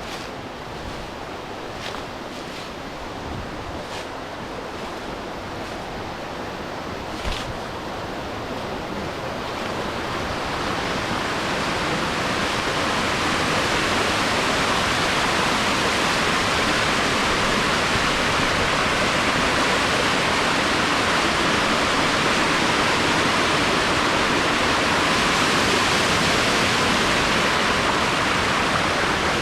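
Rushing water of a waterfall, swelling over several seconds and then holding steady. A few light clicks come in the first seconds, with a sharper one about seven seconds in.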